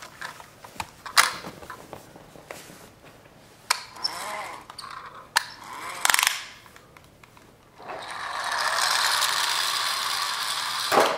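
Plastic toy cars clicking and knocking on a hardwood floor, then a toy car rolling across the floor for about three seconds near the end, finishing with a knock.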